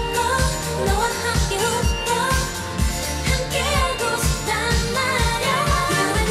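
A female solo vocal line in a K-pop song, sung live over a pop backing track with a steady drum beat.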